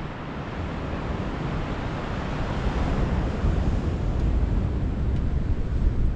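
Strong gale-force wind buffeting the microphone, with waves breaking on the shore underneath, a deep rumbling rush that slowly grows louder.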